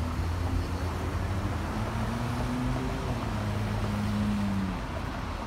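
Road traffic at a city intersection: cars driving past with their engines humming steadily.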